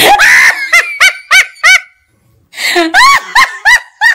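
Loud honking squawks, goose-like, in two quick runs of about five. Each call is short and rises then falls in pitch, about three a second, with a brief pause between the runs.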